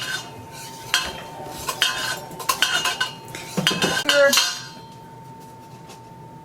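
A spoon clinking and scraping against a mixing bowl while stirring pumpkin pie filling: about seven sharp, ringing clinks over the first four seconds or so, then the stirring stops.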